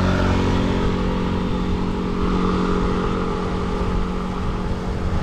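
Steady rush of wind and road noise on a camera riding with road cyclists, over a steady low hum.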